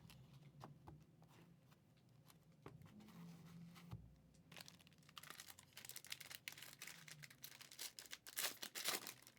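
Trading-card pack wrappers crinkling and tearing, faint at first and louder and busier in the second half.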